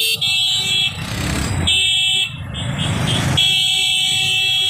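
Vehicle horns blaring over engine and traffic noise, held, breaking off twice for about a second, then sounding steadily again from about three and a half seconds in.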